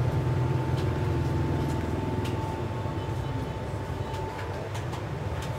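Steady low background hum with a faint, constant high whine and a few light clicks.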